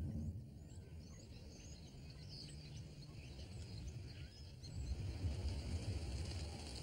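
Scattered bird chirps over outdoor background noise, with the low rumble of a car that grows louder about five seconds in.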